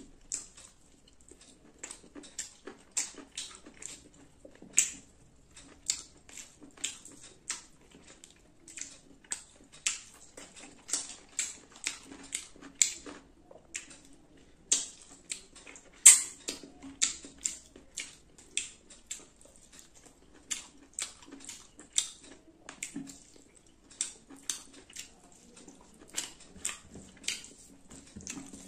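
Close-miked eating: wet chewing and lip-smacking of rice and chicken curry, a rapid run of sharp mouth clicks about two or three a second, with fingers squishing rice and curry together on a steel plate.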